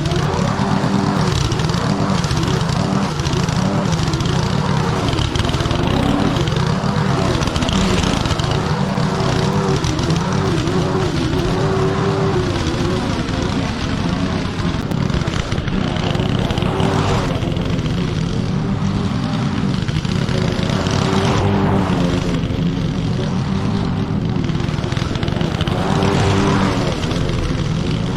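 Petrol lawn mower engine running steadily while cutting thick, wet grass, its pitch wavering up and down as the load changes.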